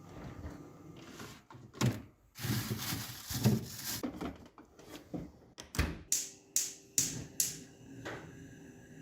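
Kitchen handling sounds: a few knocks and a rattling shuffle, like a drawer or cupboard being worked, then a quick run of four or five sharp clinks.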